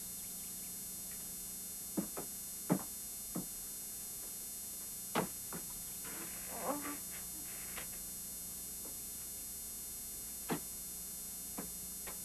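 Steady low electrical mains hum, with a handful of soft, scattered knocks and a short rustle about six seconds in.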